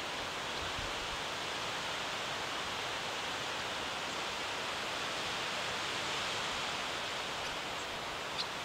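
Wind blowing steadily through pine forest treetops, an even rush with no gusts, and one brief high chirp near the end.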